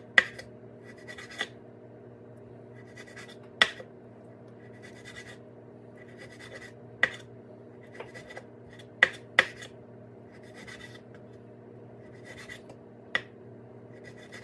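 A kitchen knife slicing raw pork on a wooden cutting board: soft scratchy sawing strokes through the meat, broken by several sharp knocks of the blade striking the board.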